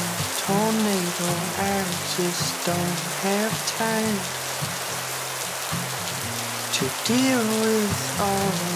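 Steady rain falling on water and wet paving, an even hiss of drops, under background music carrying a gliding melody over sustained chords.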